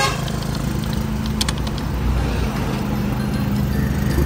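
Engine of a passenger tricycle running steadily under way in traffic, heard from inside the cab.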